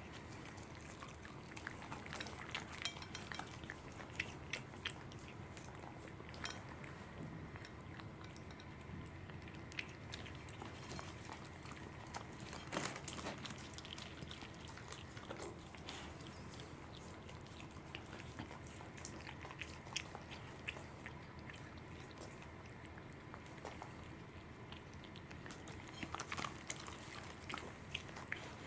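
A cat and a dog eating raw salmon: faint, irregular chewing and biting clicks.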